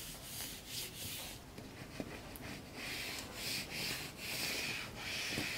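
Hands rubbing and smoothing transfer paper over vinyl lettering to press it onto a card box: a run of short, dry rubbing strokes that come quicker and louder in the second half.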